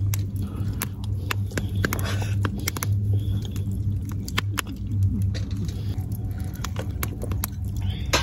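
Wood campfire crackling, with irregular sharp pops and snaps, over a steady low hum.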